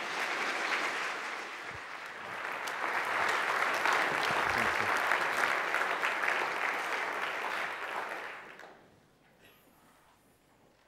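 Lecture audience applauding. It grows louder about two seconds in and dies away after about eight and a half seconds.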